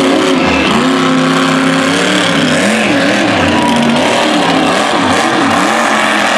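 Monster truck engine revving loudly as the truck drives on a dirt track. The engine note holds for a moment, then rises and falls several times.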